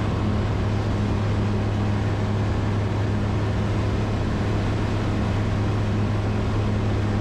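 Steady cabin drone of a Zenith STOL CH 701 in cruise: its 100-hp Rotax 912ULS flat-four engine and propeller running at constant power, a low even hum heard from inside the cockpit.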